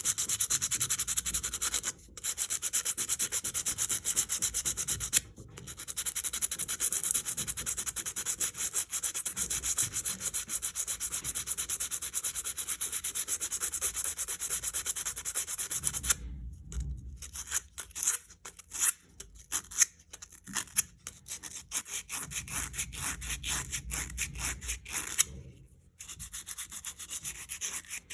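A bicycle disc brake pad being sanded with sandpaper, in quick back-and-forth rasping strokes, with brief breaks about 2 and 5 seconds in. After about 16 seconds the strokes come slower and separate. The top layer of a pad that was heated to burn out oil is being scoured off, a fix for squealing disc brakes.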